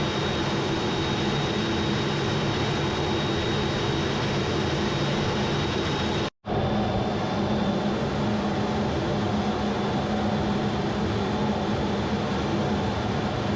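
Steady jet aircraft engine noise with a thin high whine over it; the sound cuts out abruptly for a split second about six seconds in, then carries on as before.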